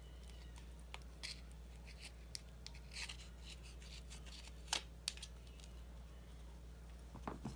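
Faint scattered clicks and scratchy scrapes of small hand tools working against an iPhone 6 while its battery is being pried loose from its adhesive, the sharpest click nearly five seconds in, over a steady low hum.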